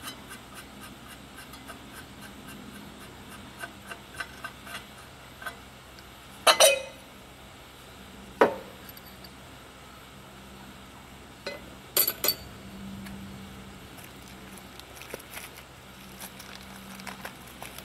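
Hand work on a Briggs & Stratton small engine's air cleaner while its air filter is changed: scattered light clicks and clinks of metal and plastic parts, with a few sharper knocks, one pair about six and a half seconds in, a single one near eight and a half seconds and another pair near twelve seconds. A faint steady hum lies underneath.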